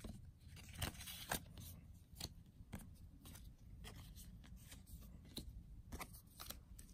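Magic: The Gathering cards being handled and squared up in the hands: a faint, irregular scatter of small clicks and soft slides as the cards tap and rub against each other.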